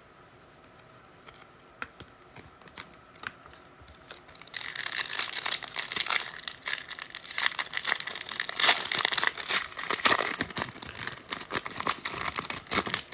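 A foil trading-card pack wrapper being torn open and crinkled. A few faint handling clicks come first, then dense crackling starts about four and a half seconds in and goes on almost to the end.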